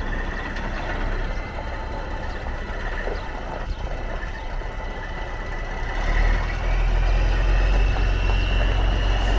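1998 International 9100 semi tractor's diesel engine running as the truck drives off, a low rumble that gets louder about six seconds in as it accelerates, with a high whine rising in pitch.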